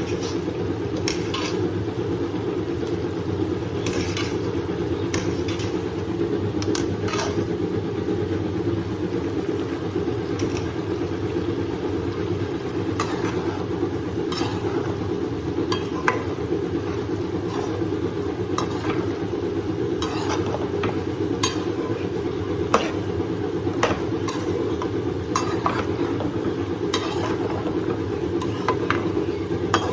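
A spoon stirring food in a pan, with frequent irregular clicks and scrapes of metal against the pan, over a steady low hum.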